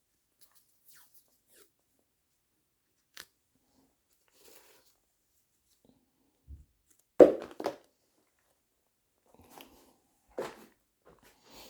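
Masking tape being handled and torn with gloved fingers: short scattered crackles, rips and clicks, the loudest cluster just after seven seconds, with a soft knock just before it.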